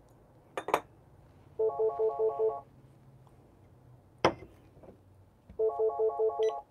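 An electronic beeper sounding in two bursts of about eight quick beeps, each burst lasting about a second and coming about four seconds apart. Between the bursts there are light clicks and one sharp knock as the brewing gear is handled.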